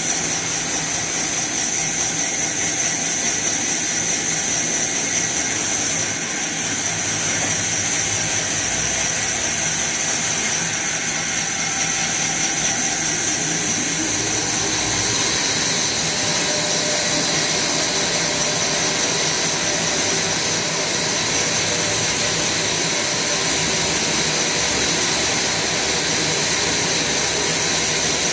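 Horizontal sawmill band saw running and cutting lengthwise through a large squared log: a steady, loud mechanical whine and hiss. The high hiss grows stronger about halfway through.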